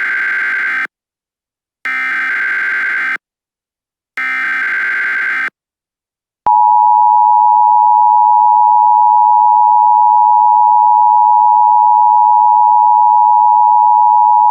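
Emergency Alert System tones: three bursts of digital data squawk from the SAME header, each just over a second long and about a second apart, then the steady two-tone EAS attention signal, which starts about six and a half seconds in and holds.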